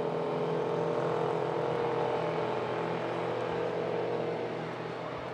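Baby Grand race car engines running at a steady pitch, a continuous drone with no revving, easing off slightly toward the end.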